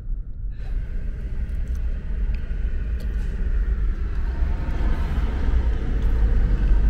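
Steady low rumble of a car on the move, engine and road noise, growing a little louder near the end.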